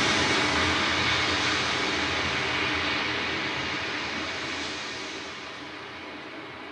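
Engine drone sound effect, loud at first and fading steadily, cut off suddenly just after the end.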